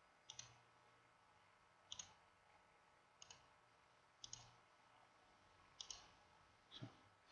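Faint computer mouse clicks, about six spaced a second or so apart, each a quick double tick of the button pressing and releasing.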